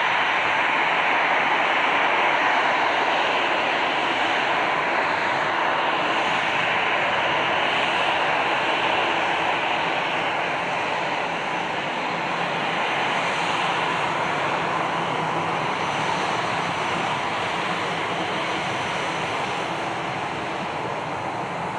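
Jet engine noise from a departing Airbus A320-216's CFM56-5B turbofans: a loud, steady rush with a faint low hum, slowly growing fainter.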